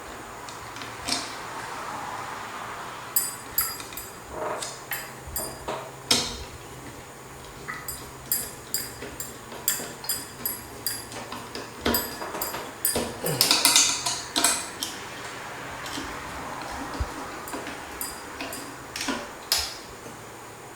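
Irregular metallic clicks and clinks from ceiling fan mounting screws being tightened with a screwdriver, the metal fan parts knocking together, with a busier run of clinking about two-thirds of the way through.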